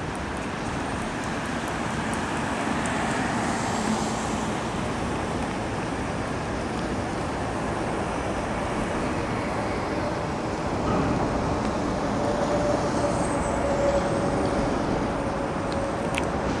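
Steady city road traffic noise, a continuous rumble and hiss of passing vehicles. A faint steady whine joins in over the second half.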